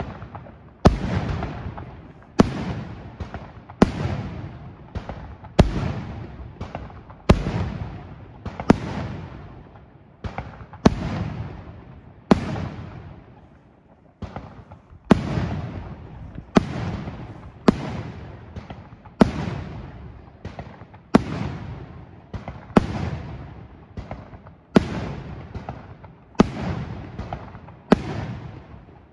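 Aerial firework shells bursting in a long run of sharp bangs, one every second or so, each trailing off into a fading rumble. There is a brief lull about halfway through.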